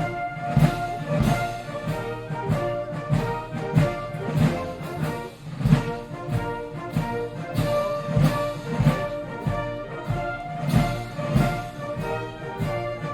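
Brass-led orchestral march music over a steady beat of about two strokes a second.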